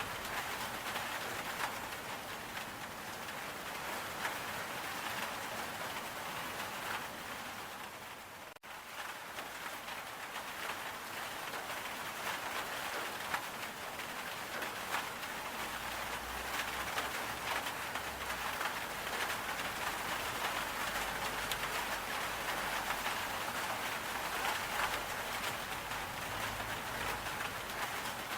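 Steady rain falling, an even hiss with fine scattered drop ticks. It cuts out for an instant about eight seconds in, then carries on as before.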